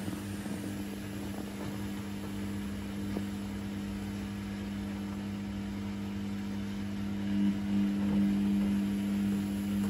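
Samsung WF80F5E2W4W front-loading washing machine running a service-mode spin: a steady motor hum from the turning drum, growing louder about seven and a half seconds in.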